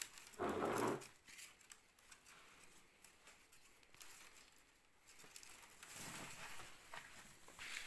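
Thin split-bamboo strips being bent, woven and rubbed together by gloved hands: light rustling, scraping and scattered clicks as the strips flex and knock. A short, louder dull sound comes about half a second in.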